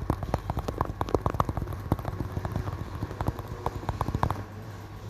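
Fingers tapping on a hard surface: a rapid, uneven run of sharp clicks that stops about four seconds in.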